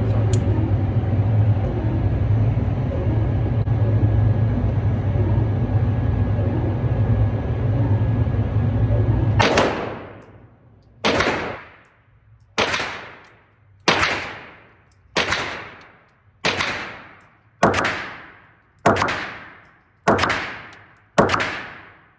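A steady low vehicle rumble for the first nine seconds or so, then it cuts off. Ten gunshots follow at an even pace, about one every second and a quarter, each with a ringing tail of about a second.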